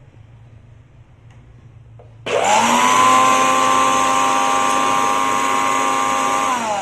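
Mixer grinder switched on about two seconds in: its motor whines up to speed within half a second and runs steadily at full speed, then starts winding down in pitch near the end as it is switched off.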